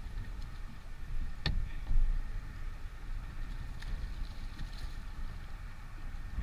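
Uneven low rumble of wind on the microphone, with a sharp click about a second and a half in and a fainter one near the four-second mark.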